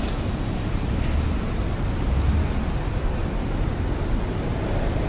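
Steady low rumble of outdoor city street noise, with no distinct events.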